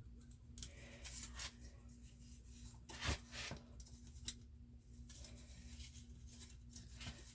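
Faint rubbing and scraping as small metal rivet-work parts and tools are handled, with two light taps about three seconds in, over a faint steady hum.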